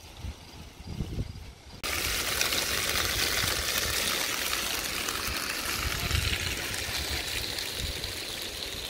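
Meat in a red sauce frying in a pan on a camp stove, a steady sizzling hiss that starts suddenly about two seconds in.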